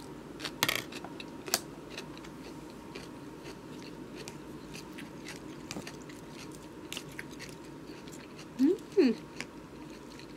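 Raw salad vegetables being chewed with a crunch, with light clicks of a plastic fork. About nine seconds in, two short sliding sounds, one rising and one falling, are the loudest thing heard.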